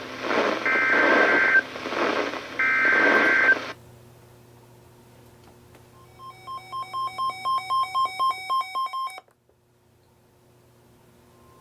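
NOAA Weather Radio EAS/SAME data header heading a tornado warning: three roughly one-second bursts of warbling data tones through radio static. Then a weather radio receiver's alert beeps in a quick run of about four or five a second, getting louder, and cuts off suddenly. Near the end the steady 1050 Hz warning alarm tone starts.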